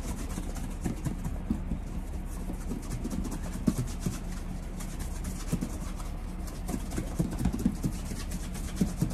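Cloth rubbing over a leather punched cap-toe shoe in a dry wipe: a quick, continuous run of small scuffs with light knocks as the shoe is handled.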